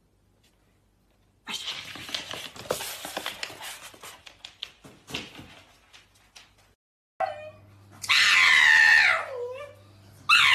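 A few seconds of scuffling and clicking, then a pug lets out loud, drawn-out cries: a long one that falls in pitch as it ends, and another starting near the end.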